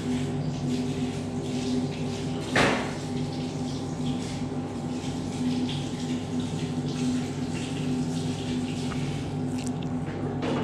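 A steady machine hum with several even tones, with light handling noises and one short, sharp knock about two and a half seconds in.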